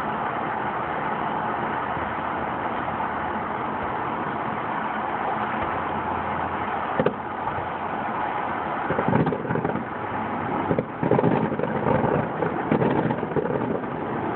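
Steady outdoor background noise, with a sharp pop about seven seconds in and then a run of firework booms and crackling from about nine to thirteen seconds.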